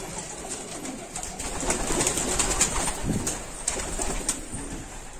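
Domestic pigeons cooing in a loft, with scattered clicks and rustling among the birds.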